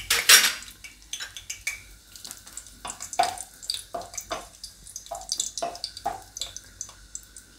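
Dry red chillies and bay leaves crackling in hot oil in a kadai, a scatter of short, drip-like pops, with a wooden spatula stirring them. The loudest crackle comes just after the start.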